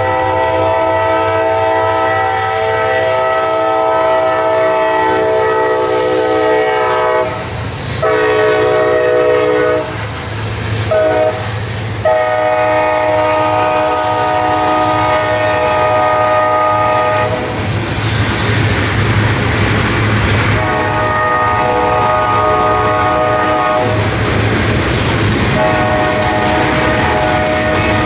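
Diesel locomotive's multi-chime air horn sounding a series of blasts: a long one, two short ones, then longer ones, over the low rumble of the passing train.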